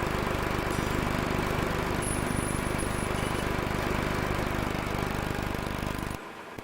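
An engine running steadily, then cutting off suddenly about six seconds in.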